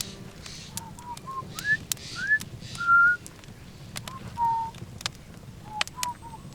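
A string of short whistled notes at about one pitch, with a few gliding upward in the middle, over the sharp crackles of a campfire.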